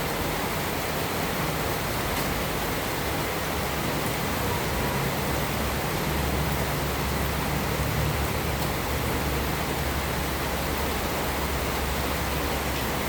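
Heavy rain pouring as a steady, even hiss, with a low rumble underneath that grows stronger about halfway through.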